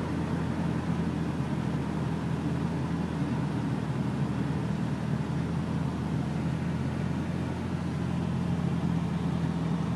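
Steady engine and road noise of a Nissan 240SX (S13) heard inside the cabin while driving at a constant speed.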